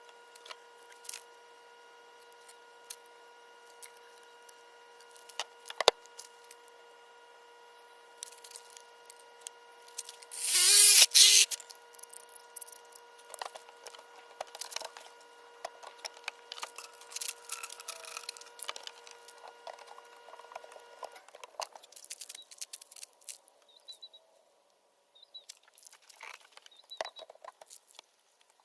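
Scattered clicks, knocks and rustles of hand work on the cooler and pipe parts, with one loud harsh burst lasting about a second near the middle. A faint steady hum runs underneath and stops about two-thirds of the way through.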